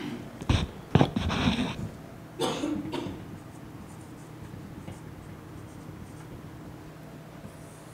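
Dry-erase marker drawing and writing on a whiteboard: scratchy strokes in the first three seconds with a sharp knock about a second in, then only faint marker sounds over a low steady hum.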